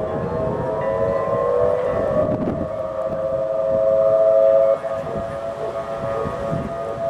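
A 1983 Federal Signal Thunderbolt outdoor warning siren sounding together with distant Whelen 2810 electronic sirens imitating its tone. Several siren tones rise over the first two seconds and then hold steady. The loudest pair cuts off suddenly about two-thirds of the way through, while the others keep sounding.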